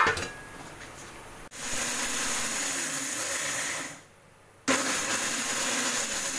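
Indian mixer grinder (mixie) grinding dry-roasted whole spices in its steel jar, in two short runs: it starts about a second and a half in, stops abruptly after about two and a half seconds, and starts again under a second later. It is run in pulses to keep the grind coarse.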